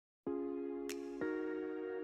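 Intro background music: sustained chords that begin a moment in, with a bright shimmer and then a chord change about a second in.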